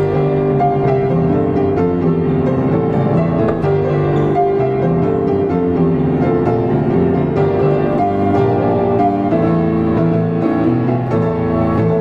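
Diapason grand piano played solo, a continuous run of dense, overlapping notes with the sustain ringing.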